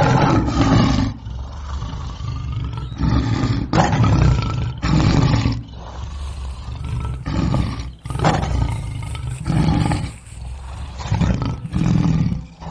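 A big cat roaring: a recording of a series of deep, rough roars and growls, one after another.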